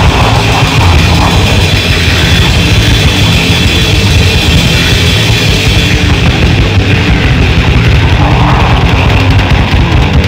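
Grindcore/death metal recording: heavily distorted guitars and bass over fast, dense drumming, loud and unbroken.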